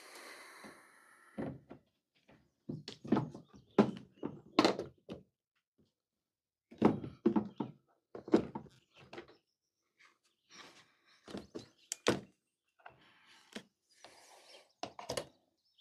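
Hands working on a portable inverter generator: irregular thunks, knocks and clicks of parts being handled and fitted, coming in several clusters with short pauses between. A soft hiss in the first second or so.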